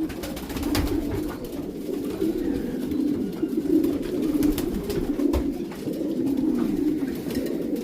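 Many racing pigeons cooing at once inside a loft, a continuous low, throaty murmur of overlapping coos, with a few sharp clicks.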